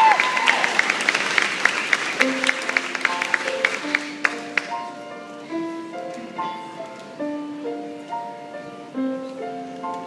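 Applause dies away over the first few seconds while a piano begins playing, its notes and chords ringing on through the rest.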